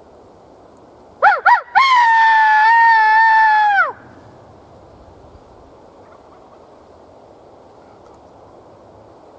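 A loud pitched call: two short swooping notes, then one long held note of about two seconds that drops away at the end.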